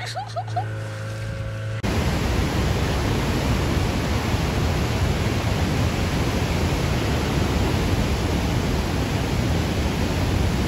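A boat motor's low steady hum briefly, then, from about two seconds in, the steady rushing of white-water river rapids.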